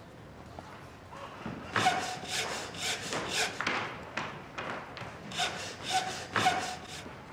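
Hand saw cutting wood in repeated back-and-forth strokes, about two or three a second, starting about a second and a half in.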